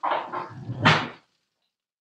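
A dog barking a couple of times in the first second or so, then it stops.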